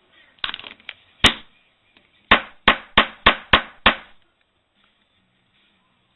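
Hard knocks, as of a tool or phone parts striking a hard surface: a few scattered ones, then a quick run of six sharp strikes about three a second.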